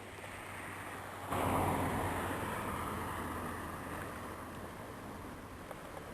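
Road-vehicle noise: a steady low engine hum, with a louder rush of passing-vehicle noise that comes in suddenly about a second in and slowly fades away.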